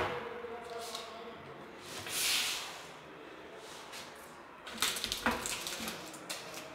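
Handling noise from MDF kitchen cabinet doors: a brief rustle about two seconds in, then a cluster of clicks and knocks about five seconds in as a door is moved and swung open.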